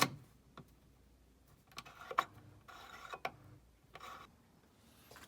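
Scattered sharp clicks and knocks with brief rubbing as a replacement headlight switch is handled and pushed at under a car dashboard. The switch will not seat fully. The loudest click comes right at the start and another about two seconds in.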